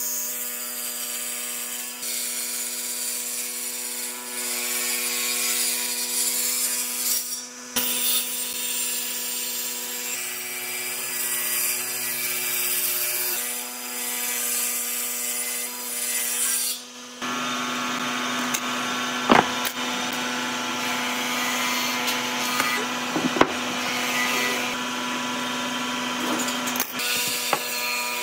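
Table saw motor running while its circular blade rips a pine board lengthwise: a steady hum under the cutting noise. The sound breaks off briefly twice. For the last third a different steady hum runs with a few sharp clicks.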